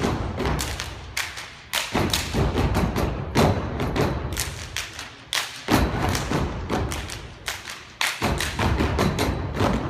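A step team stomping and clapping in unison on a stage: a fast, rhythmic pattern of hits, with heavier stomps landing every couple of seconds.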